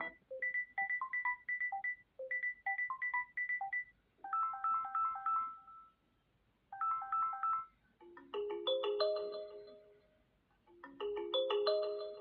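Samsung Galaxy A26 ringtones playing: short melodic phrases of clean, bell-like synthesized notes, each phrase repeated after a brief gap. About eight seconds in, the melody moves to lower, fuller chords.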